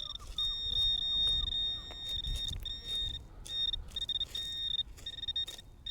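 A metal detector sounding a steady high-pitched target tone that cuts out and comes back several times as it sits over a buried coin. Wind rumbles on the microphone underneath.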